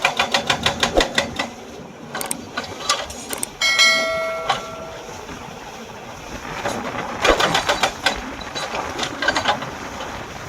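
Hydraulic breaker hammer on a Hyundai EX210 excavator pounding rock in fast bursts of about ten blows a second, stopping about a second and a half in and starting again a few seconds later. Around four seconds in, a ringing tone sounds for about a second.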